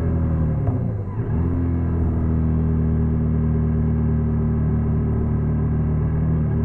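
Honda NC750X motorcycle's parallel-twin engine running, the revs easing down, with a brief dip and recovery about a second in, then holding a steady note.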